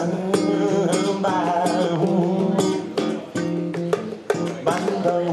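A live acoustic guitar, strummed and picked in a steady rhythm, with a man's voice singing over it.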